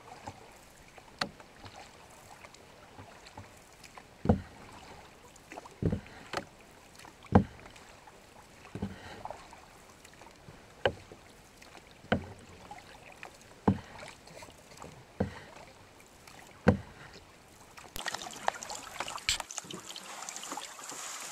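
Canoe paddle strokes: a sharp knock or splash about every one and a half seconds as the paddle dips and pulls, over a low hiss of water. Near the end, a steadier, louder rush of wind and water takes over.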